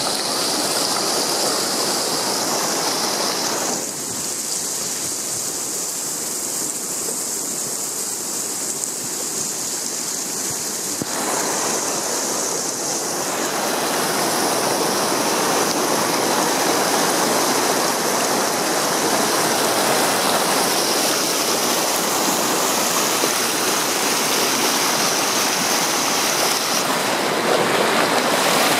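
Fast glacial meltwater river rushing and splashing over rocks and boulders, a steady rush that drops back a little for a few seconds early on and grows louder through the second half.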